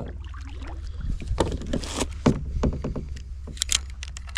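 Scattered light knocks and clicks, as from handling gear in a small boat, over a steady low hum.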